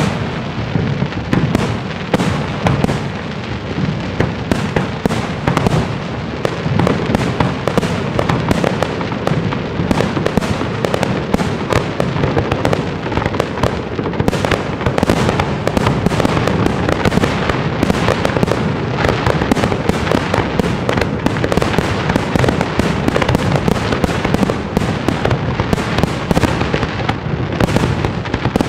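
Large professional aerial fireworks display (class F4 shells) bursting overhead in a dense, continuous volley of rapid bangs.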